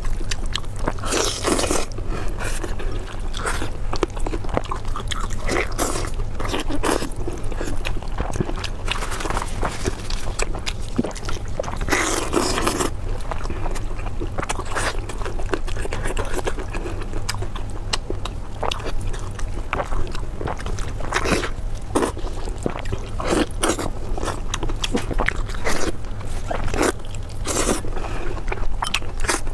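Close-miked eating: irregular crunching bites and chewing with scraping sounds, over a steady low hum.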